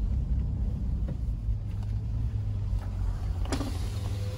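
Steady low rumble of an off-road SUV's engine and drivetrain, heard from inside the cabin, with a few faint ticks and one sharp knock about three and a half seconds in.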